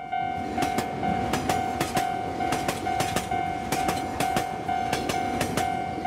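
Railroad crossing bell ringing its evenly repeated kan-kan tone while a train rushes past. The train's noise is studded with rapid, irregular clicks of wheels over the rails.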